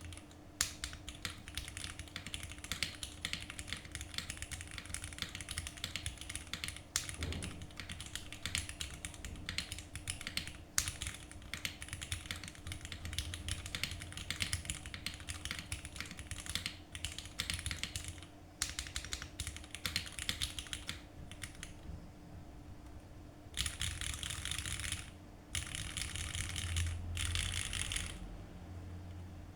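Typing on a MonsGeek M1 mechanical keyboard: a fast, steady stream of key clacks. Near the end, it turns into three short, dense runs of continuous clatter.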